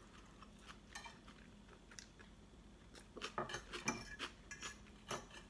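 Quiet eating sounds: forks and knives clicking against ceramic plates, with soft chewing. The clicks are sparse at first and come more often in the second half.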